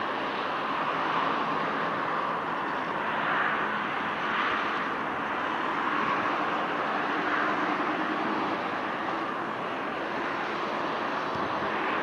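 Jet noise from a Boeing 747-8 freighter's four GEnx turbofans during its landing rollout on the runway: a steady rush of noise that swells and fades a little every second or two.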